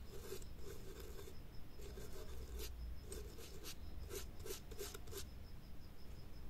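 Toothbrush bristles scrubbing a smartphone's circuit board in quick bursts of short strokes, cleaning excess solder paste off the board; the scrubbing stops about five seconds in.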